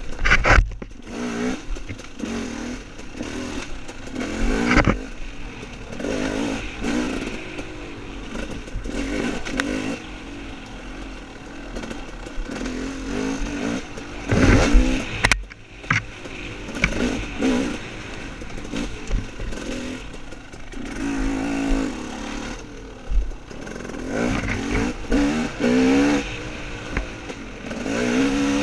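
Dirt bike engine revving up and falling back again and again as it is ridden off-road, with several loud thumps about half a second in, near 5 s and around 15 s.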